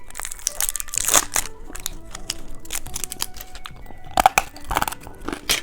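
Plastic candy packaging crinkling and crackling as it is handled and opened: an irregular string of sharp crackles and clicks.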